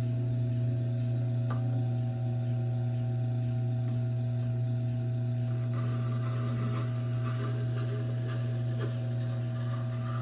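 Tormek T4 wet sharpener running with a steady motor hum. From about halfway in, a light scraping hiss joins it as the knife edge is drawn lightly across the wet grinding stone: a very light pass to take off the burr.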